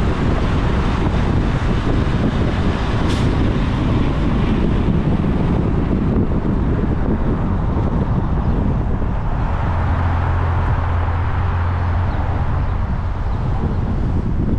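Steady road and traffic noise from a vehicle driving along a city avenue, with wind on the microphone and a motor coach running close alongside at first. A short sharp hiss comes about three seconds in, and a deeper low hum swells from about ten to twelve seconds in.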